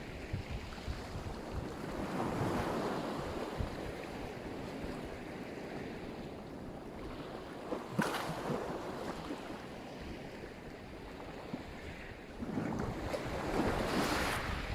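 Black Sea surf: waves washing onto the shore in slow surges, with a sharp splash about halfway and a bigger wave breaking near the end.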